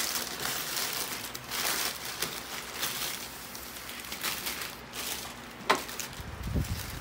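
Paper sandwich wrapper crinkling and rustling as it is unfolded from a sandwich, with one sharp crackle near the end.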